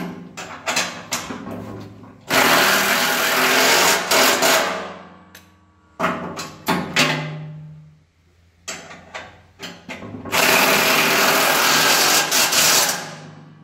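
DeWalt cordless impact driver hammering bolts tight into a steel loader bucket: two runs of about two and a half seconds each, with short trigger blips and clicks between.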